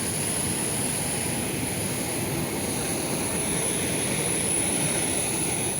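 Steady, unchanging rush of a jet airliner's engines, with a thin high tone held over it.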